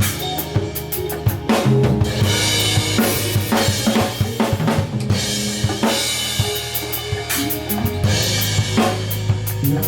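A drum kit played in a steady groove, with bass drum, snare and cymbal hits, over sustained low bass notes from other band instruments.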